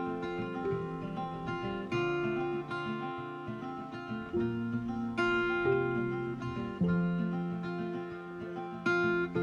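Background music: instrumental acoustic guitar playing plucked notes, with no singing.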